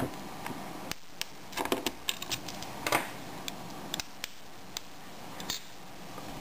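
Irregular small clicks and scrapes of metal and plastic as a small screwdriver pries the back metal casing off a Creative Zen Micro MP3 player and the opened player is handled, with a bunch of clicks about a second and a half in and another near the middle.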